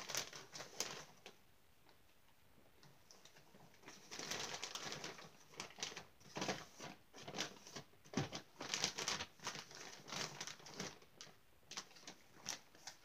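Kaytee Clean & Cozy paper bedding being poured from its plastic bag into a plastic cage base: dry rustling and crinkling of the bag and the bedding, sparse and then quiet for a couple of seconds near the start, then a busy run of crackles to the end.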